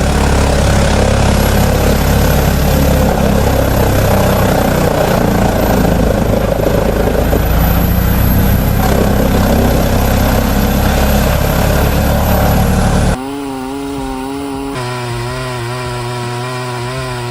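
Wood-cutting machinery running hard: a loud, steady engine with dense cutting and grinding noise. About 13 seconds in it cuts abruptly to a quieter engine whose pitch wavers up and down.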